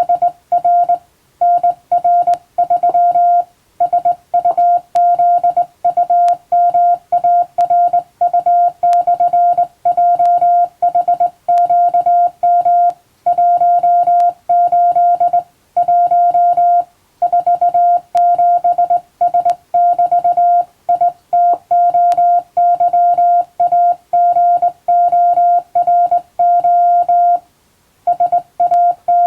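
Morse code sent as a single steady beeping tone, keyed fast in dots and dashes, in groups separated by short gaps, with a longer pause near the end.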